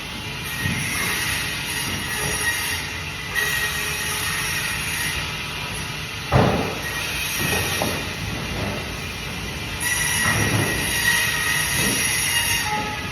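Bandsaw running and cutting through fish, a steady high-pitched screech from the blade, with a couple of dull thuds about six and ten seconds in.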